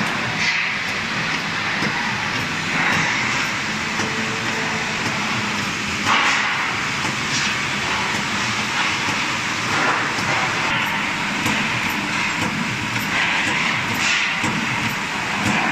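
EQFS TS-240 electro-hydraulic brake-shoe riveting machine running, a steady mechanical noise with brief louder surges every two to four seconds.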